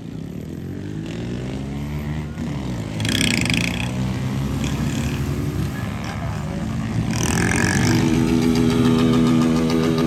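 Small motorcycle engine revving during wheelies, its pitch rising and falling as the throttle is worked, then settling into a steady high-revving note about two-thirds of the way in. Brief shouts twice.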